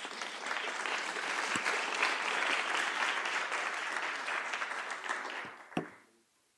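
Audience applauding, dying away about six seconds in, with a short knock just before it stops.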